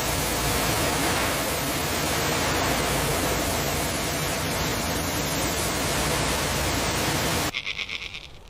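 Steady, loud rushing noise with no tone or rhythm, cutting off abruptly about a second before the end, after which a faint, fast buzzing is left.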